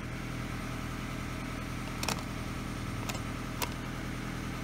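A steady low mechanical hum, like an engine running, with a few sharp clicks about two seconds in and again near three and a half seconds.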